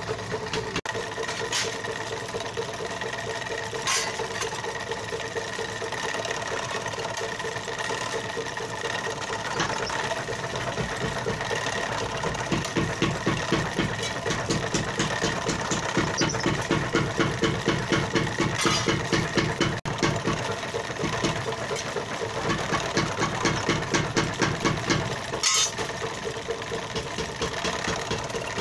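Motor-driven sheet-metal shearing machine running and chattering as its blade chops through a steel trowel blank along a marked outline. The rapid, even blade strokes grow louder about halfway through over a steady motor hum, with a few sharp metallic clicks.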